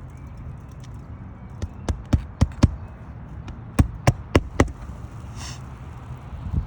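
Hammer striking on an asphalt-shingle roof: two quick runs of four sharp knocks, about three to four a second, a second or so apart.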